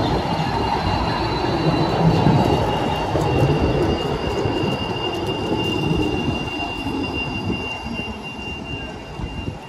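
Low-floor articulated tram rolling along street track: a low rumble with a steady high-pitched squeal from the wheels on the rails, growing quieter near the end.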